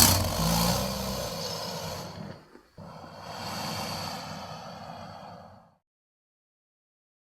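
Designed were-hyena creature sound effect, layered from animal and monster recordings: two long, breathy exhalations. The first is loud with a low rumble under it and fades over about two seconds; the second is quieter and fades out about two-thirds of the way in.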